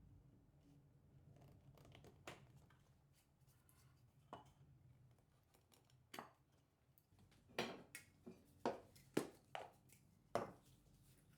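Sharp, isolated taps and knocks of hand tools and wood on a workbench, a few at first and then a quicker run of about seven louder knocks in the last few seconds.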